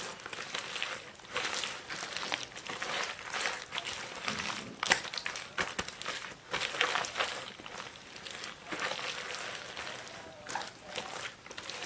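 Rubber-gloved hands rubbing red chili seasoning paste into salted napa cabbage leaves for kimchi: irregular wet squishing and crinkling of the leaves, with many short crackly strokes.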